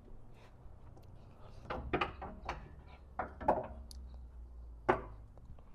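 A handful of short, irregular clunks and knocks from suspension parts and tools being handled while the old rear control arm is removed.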